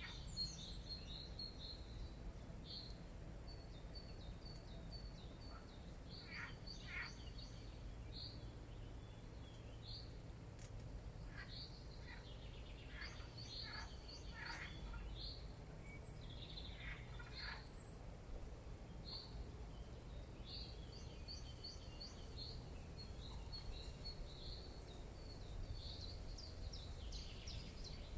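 Small birds chirping and twittering in runs of short high notes, with a few quick downward-sweeping calls, over a faint steady low rumble of outdoor background noise.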